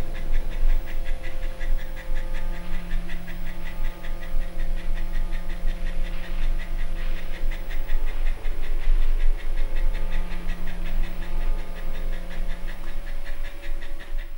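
French bulldog panting in fast, even breaths, over a steady low hum.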